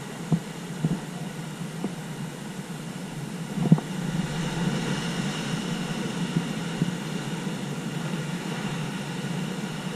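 Ocean surf breaking on a rocky shore: a steady rush of waves with a few sharp thumps, the loudest as a big wave crashes onto the rocks a little under four seconds in. After that crash the rushing wash is louder.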